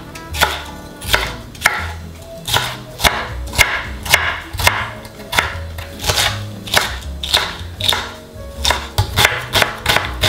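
Kitchen knife chopping vegetables on a bamboo cutting board: a steady run of knife strikes, about two a second, as green pepper and then onion are finely diced.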